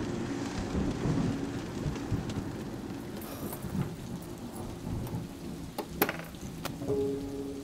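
Steady rain with a low rumble of thunder, and a couple of sharp clicks about six seconds in.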